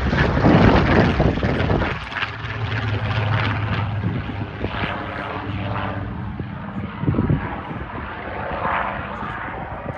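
A single-engine piston warbird's engine drones steadily in flight with a deep, even tone, slowly fading as the aircraft moves away. For about the first two seconds the sound is rough and gusty, like wind buffeting the microphone.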